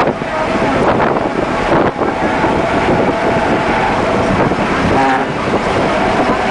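BMW M3's engine running at track speed, heard from inside the cabin, mixed with steady wind and road noise.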